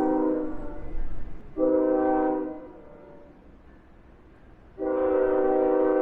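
Locomotive air horn sounding a multi-note chord: a long blast ending about half a second in, a short blast a second later, then another long blast starting near the end, over a low train rumble. The long-short-long run matches the end of the standard grade-crossing signal.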